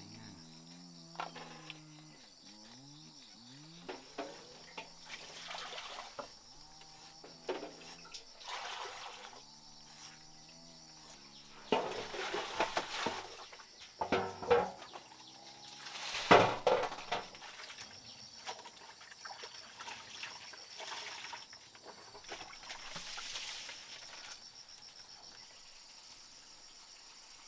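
Cleaver knocking now and then on a thick wooden chopping board while cutting chicken gizzards and onion, over a faint steady high drone of insects. A few low pitched calls or voices sound in the background in the first half.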